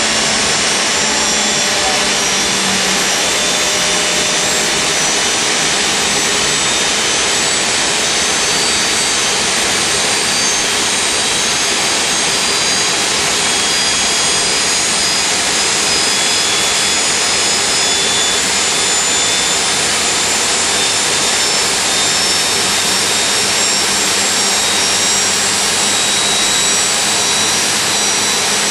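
General Electric T64 turboshaft engine running steadily in a boat: a loud rushing turbine whine with several high-pitched tones that creep slowly higher.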